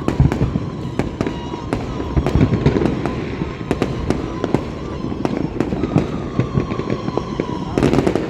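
Fireworks going off: a dense, unbroken crackle of sharp pops and bangs, many a second, with a faint steady whistle-like tone underneath.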